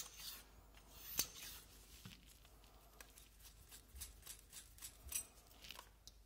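Faint clicks and light metallic ticks of a gun-cleaning rod and bore brush being handled: a sharp click about a second in, then a run of small ticks as the brush is unscrewed from the rod and set down.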